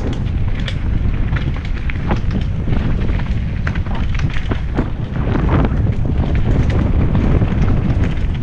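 Wind buffeting the microphone of a helmet-mounted camera on a mountain bike descending fast, with many quick clicks and knocks of the bike rattling over roots and bumps in the dirt trail.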